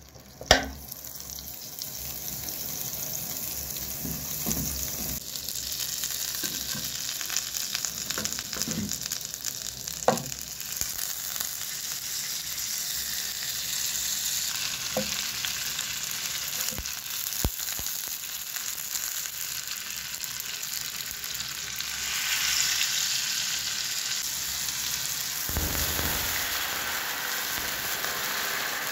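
Butter and whole porcini mushrooms frying in a nonstick pan: a steady sizzle, with a sharp knock of the spatula against the pan about half a second in and another about ten seconds in. Near the end, water is poured into the hot pan over the mushrooms.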